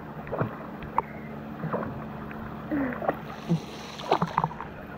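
Swimming-pool water lapping and small splashes close to the camera as a child paddles in arm floats, with a few short, faint voice sounds.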